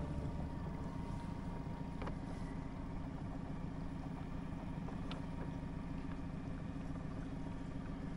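Small boat's motor running steadily at low speed, a constant low hum as the boat creeps along the shoreline.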